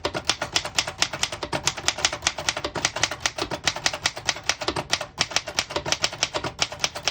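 1933 Remington Junior portable manual typewriter being typed on at a quick steady pace: a rapid run of type-bar strikes, about seven or eight a second, with short pauses about five seconds in and near the end.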